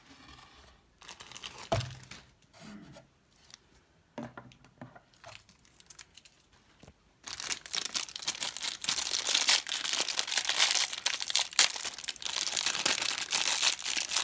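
Handling and then tearing open the sealed plastic wrapper of a mini collectible: a few faint rustles and small knocks, then from about halfway through a continuous crinkling, tearing crackle of plastic film.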